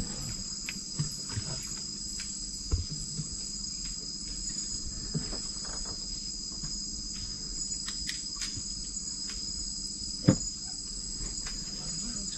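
Steady high-pitched night chorus of crickets and other insects, with a few dull knocks, the loudest about ten seconds in.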